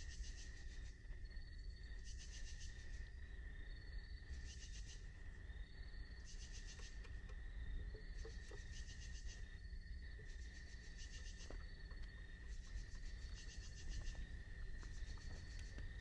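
Insects singing at dusk: a steady high-pitched drone with a louder, finely pulsed chirp repeating about every one and a half seconds, over a low steady background rumble.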